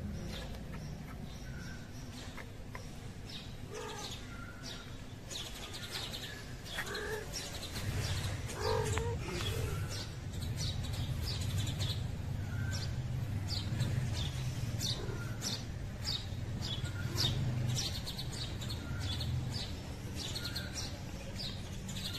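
Small birds chirping in quick, repeated short notes over a low steady hum.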